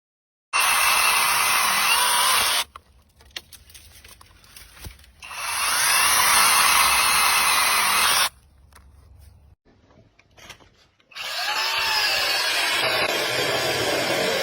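Chainsaw cutting through wood in three separate stretches of a few seconds each. Each stretch starts and stops abruptly, with quieter gaps between.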